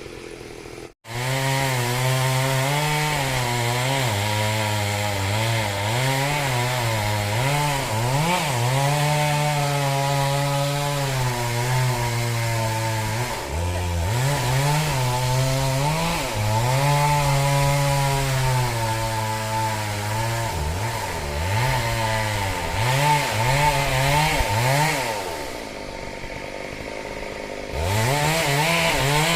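Two-stroke chainsaw cutting wood, its engine note repeatedly rising and falling with the load. The saw eases off for a couple of seconds near the end, then revs back up.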